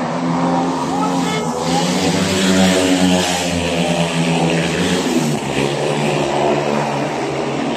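Speedway motorcycles' 500 cc single-cylinder methanol engines running on track, the pitch rising and falling a little as the riders throttle on and off, loudest a few seconds in.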